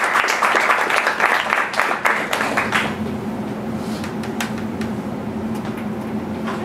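Audience applauding at the end of a talk, dense clapping that dies away about three seconds in, leaving a steady low room hum with a few faint knocks.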